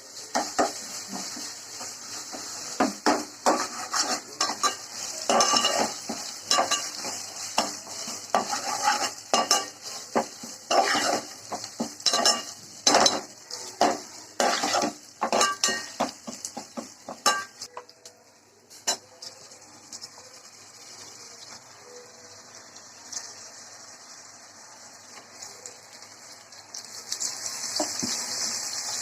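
A metal spoon stirring and scraping in a cooking pan, clinking against its sides many times, over the sizzle of food frying in oil. The stirring stops a little over halfway through, leaving a steady sizzle that grows louder near the end.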